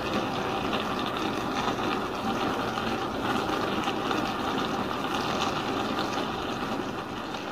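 Beef bulgogi and vegetables cooking in a stainless steel pot, with a steady, dense sizzling and bubbling of the broth that grows quieter near the end.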